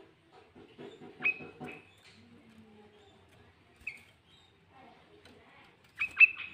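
Sooty-headed bulbul giving short, sharp chirps: a pair about a second in, a single one near the middle, and a loud quick cluster of three near the end, over a soft rapid low stutter early on.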